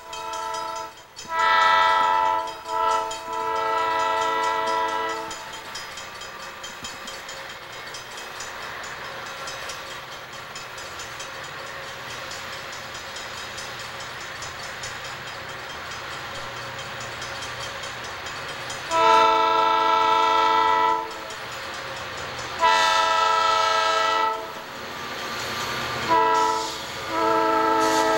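Southern Pacific EMD six-axle diesel locomotives climbing a grade, the lead unit sounding its multi-chime air horn in blasts near the start and again in a long, long, short, long pattern, the grade-crossing signal, in the second half. Between the blasts the diesels' working rumble grows louder as the train draws near.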